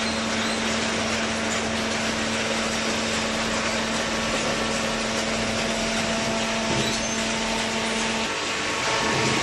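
Horizontal hydraulic waste baling press running: a steady machine drone with a constant low hum, which shifts briefly about eight seconds in.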